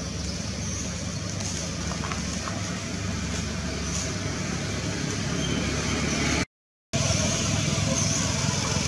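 Steady low rumble of background noise, with a brief cut to total silence about two-thirds of the way through.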